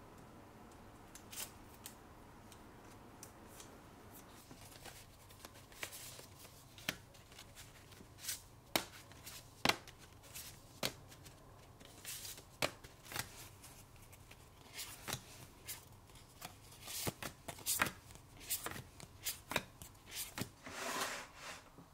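Stiff paper cards and sheets handled and set down on a wooden desktop: a string of irregular light taps, flicks and paper rustles. Near the end comes a longer rustling scrape as a wooden stamp tray is pulled out.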